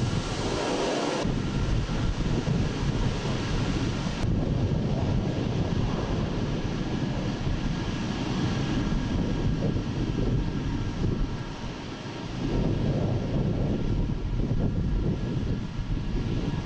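Jet engines of a Tu-160 bomber, four Kuznetsov NK-32 turbofans, running at low power on the ground as it taxis. A steady heavy rumble carries a faint high turbine whine.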